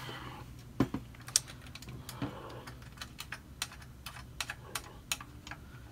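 Scattered light clicks and taps of a small metal bolt and nut being fitted through a plastic blaster body by hand, with two sharper knocks about a second in.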